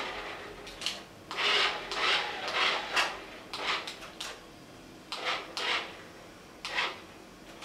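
Rough scraping or rubbing in about ten irregular strokes, each under a second long, with no motor whine.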